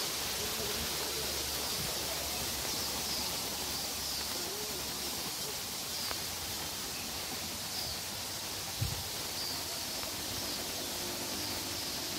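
Steady rushing of a rocky stream, with a bird repeating a short high call about once a second over it. A single brief thump near nine seconds in.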